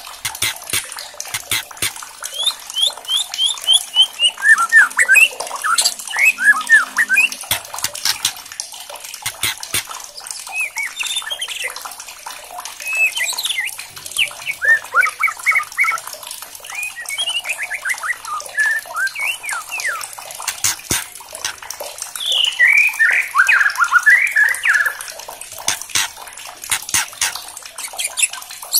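White-rumped shama singing loudly: phrases of quick rising and falling whistled notes, broken by sharp clicking crackles. This is the hard clicking 'kretekan' used to rouse caged shamas.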